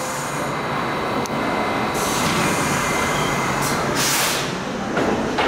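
Subway train standing at the station with its equipment humming and rumbling steadily, and a short, sharp hiss of air about four seconds in.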